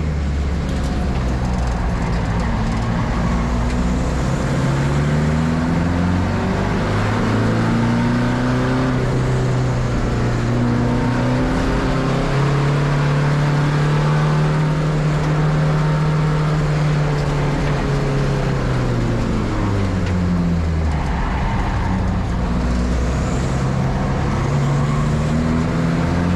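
Race car engine under hard driving, pitch climbing and dropping back at each gear change, holding a steady high note for several seconds in the middle, then falling away as the car slows about twenty seconds in, and climbing again near the end.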